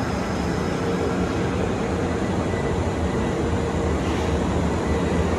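Kintetsu electric train's steady rumble, with a faint steady hum above it.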